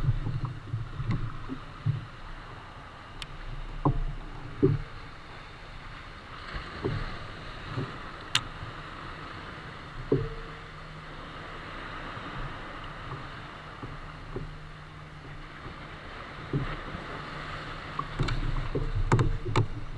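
Water lapping and slapping against a plastic sit-on-top kayak hull, with low rumbles of wind on the microphone near the start and near the end. A few light knocks come through it.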